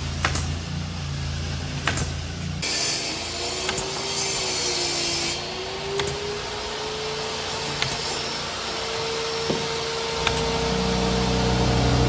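Carpentry on plywood: a power tool runs against the wood, with scattered sharp knocks.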